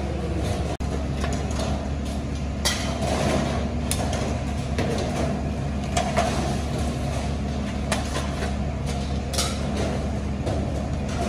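Metal ladles scraping and clinking against large rice pots and serving platters, with a few sharper knocks, over a steady low hum.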